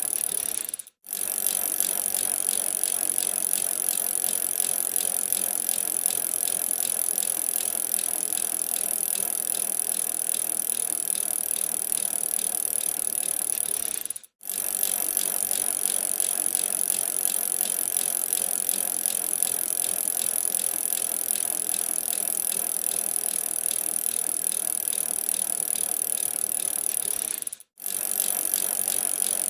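Bicycle being ridden: a steady rattling whir from the drivetrain and wheels. It is broken by three very short, evenly spaced gaps: about a second in, midway, and near the end.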